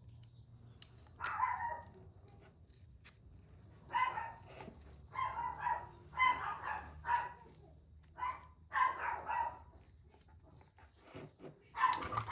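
Pet dog barking repeatedly in short bouts of one to three barks, with pauses between, louder near the end. The owner takes it for barking to warn about people walking by.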